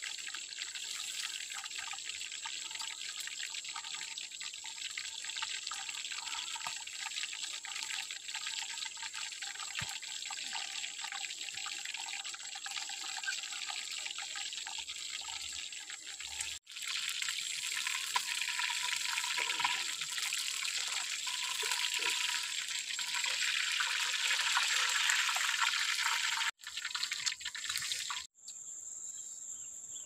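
Fish frying in oil in a wok over a wood fire, a steady crackling sizzle, with a steady high insect whine under it. The sizzle stops suddenly near the end, leaving only the insect tone.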